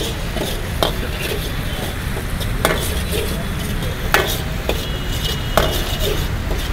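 Metal ladle stirring and scraping fried paneer cubes around a large metal wok, with sharp clanks against the pan every second or so, over the sizzle of the cooking sauce.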